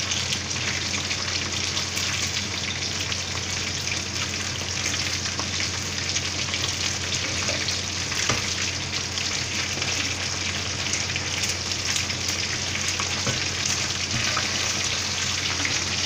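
Chicken wings deep-frying in hot oil in a wok: a steady, crackling sizzle, with a metal ladle stirring the pieces through the oil.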